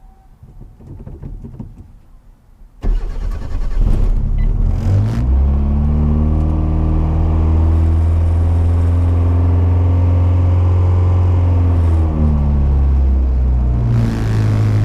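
Turbocharged car engine starting about three seconds in, its revs settling to a steady high idle, then dipping and picking up again near the end.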